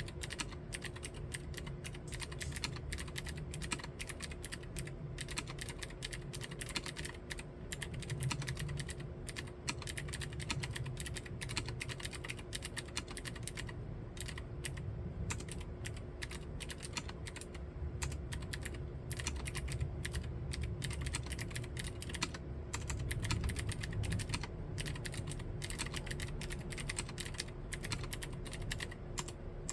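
Continuous fast typing on a Novelkeys NK87 Entry mechanical keyboard fitted with Gateron Green clicky switches, a dense run of sharp keystroke clicks.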